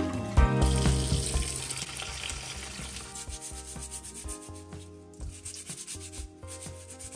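Wooden bristle vegetable brush scrubbing a wet carrot over a basin of water, in quick repeated strokes that grow fainter.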